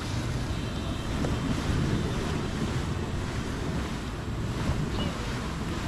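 Kayak hull being dragged over grass by its bow rope: a steady rough swishing and rumbling.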